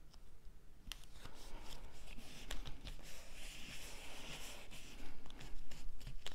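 Cardstock handled on a tabletop: stiff paper pieces sliding and rustling against each other and the table, with small clicks and taps, starting about a second in.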